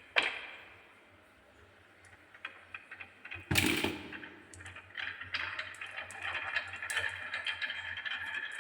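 Glass marbles rolling and clattering down a wooden marble run. A ringing tick comes just after the start, then a second or two of near quiet, a loud knock about three and a half seconds in, and then a continuous rolling rattle with quick ticks that grows toward the end.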